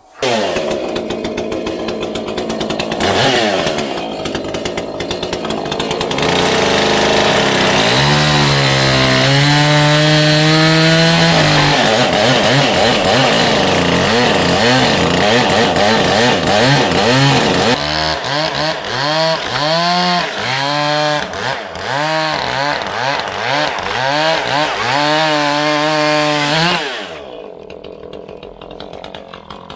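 Chainsaw running at high speed, its pitch swinging up and down again and again, then dropping off sharply near the end.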